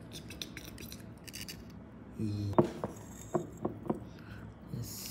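Oyster shells clicking and scraping together as raw oysters are handled and opened, about five sharp clicks in the second half, with a brief low vocal sound just before them.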